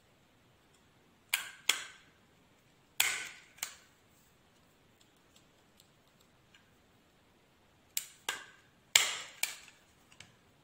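A desktop stapler is pressed shut, driving staples through folded fabric. It makes sharp clicks in close pairs: two pairs in the first few seconds, then a pause of several seconds, then two more pairs.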